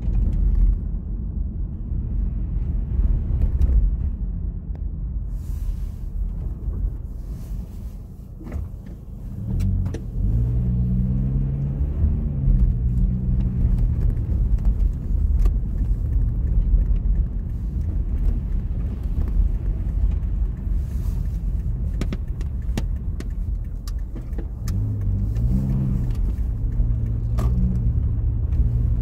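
Car driving slowly on an icy, slushy street, heard from inside the cabin: a steady low engine and road rumble. The engine note rises as it accelerates about a third of the way in, and again near the end. Scattered sharp clicks and cracks sound through it.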